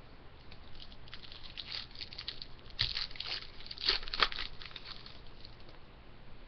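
Paper-and-foil rustling and crinkling as trading card packs and cards are handled and sorted, with sharper crackles about three and four seconds in.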